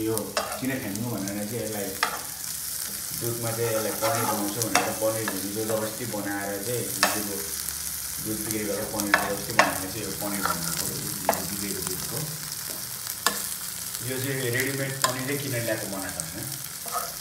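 Paneer pieces sizzling in hot oil in a nonstick wok, with a metal spoon now and then clicking against the pan as they are turned.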